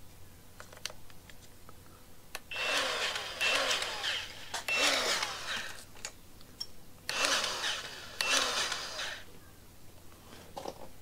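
Battery-powered grease gun running in about five short spurts of roughly a second each, in two groups, as it pumps grease into a mini excavator's boom cylinder pin fitting. The grease is not going into the pin and spills out in a mess instead, which the owner thinks may be a clogged pin.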